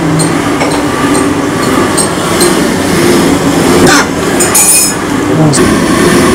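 Glow-worm gas boiler making a loud, continuous mechanical racket as it is switched on, with a brief high-pitched burst about four and a half seconds in. The uploader traces this boiler's noises to a faulty fan.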